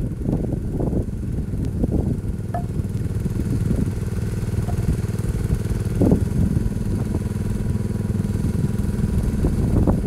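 1975 Case 224 garden tractor engine running, driving a homemade hydraulic log splitter. From about two seconds in its note turns steady and even while the splitter is worked. A short, louder burst comes about six seconds in.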